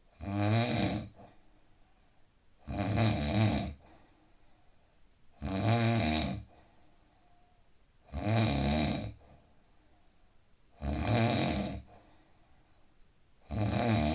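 A man snoring heavily in a steady rhythm: six loud, rasping snores, each about a second long and coming about every 2.7 seconds, with quiet breathing between them.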